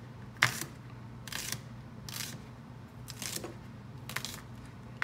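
Chef's knife slicing shallots on a plastic cutting board: about five short cuts, roughly one a second, each ending in a knock of the blade on the board, the sharpest about half a second in.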